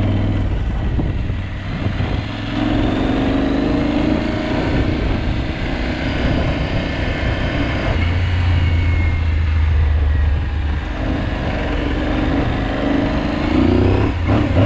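Aprilia Tuareg 660's parallel-twin engine running under load while the motorcycle is ridden off-road. Its pitch rises as the throttle is opened, a few seconds in and again near the end.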